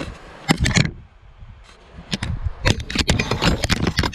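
A ratchet wrench being hooked and dragged within reach, giving a couple of sharp knocks about half a second in, then a quick run of metallic clicks, scrapes and rattles.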